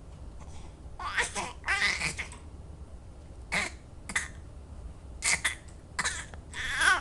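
A baby making short, high-pitched squeals and babbles in about seven separate bursts.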